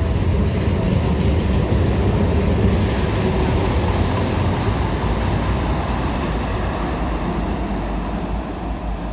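Tyne and Wear Metrocars 4041 and 4084 moving out of the platform, a steady hum of motors and wheels on rail that grows gradually quieter over the second half.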